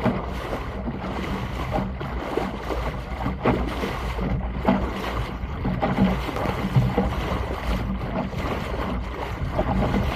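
Water rushing and splashing against the pram bow of a SCAMP sailing dinghy under way, with irregular splashes as it meets the chop, and wind buffeting the microphone underneath.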